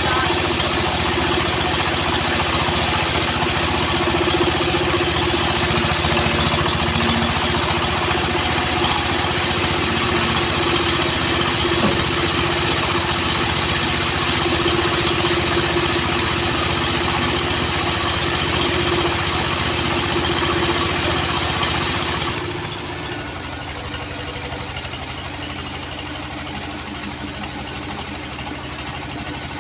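Homemade bandsaw sawmill running and sawing through weru timber, a loud steady machine noise with a humming tone. About three-quarters of the way through, the tone stops and the noise drops to a quieter steady running.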